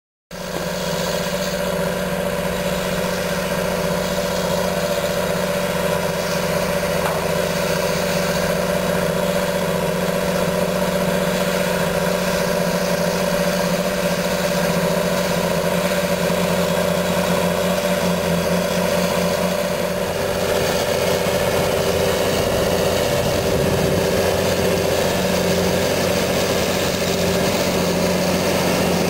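John Deere 8530 tractor's six-cylinder diesel running steadily under load while pulling a five-shank subsoiler through the soil. The sound cuts in suddenly just after the start.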